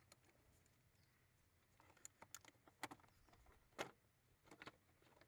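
Faint, irregular clicks and taps of small hard parts and tools being handled during car interior trim work, starting about two seconds in after near silence.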